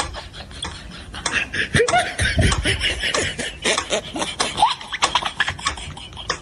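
Mechanical pendulum metronome ticking, with snickering laughter partway through.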